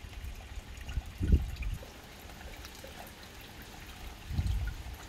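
Rain falling in a garden: a light patter of drops on wet stones and pond water, with water trickling. Two short low rumbles break in, the louder about a second in and another near the end.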